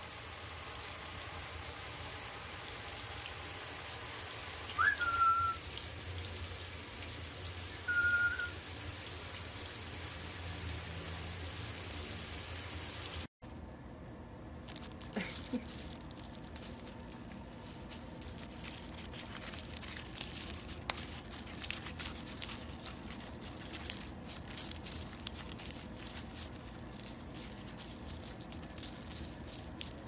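Water spraying steadily from a shower head onto a bathing eclectus parrot, with two short whistles about 5 and 8 seconds in, the first rising quickly before it levels off. After a sudden cut about 13 seconds in, a male eclectus parrot tearing and shredding a strip of paper: a run of small crackles and rustles.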